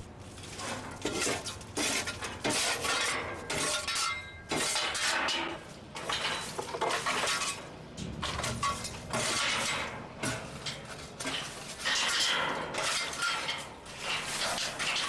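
Loose garbage being pushed and dragged out of a trash compactor by hand, hard pieces of trash clattering and clinking against each other and the steel in irregular bursts, one or two a second.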